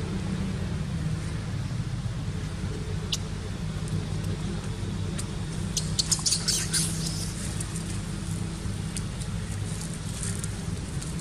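Steady low hum of a vehicle engine idling. About six seconds in comes a short burst of crackling as a pig-tailed macaque walks over dry leaf litter.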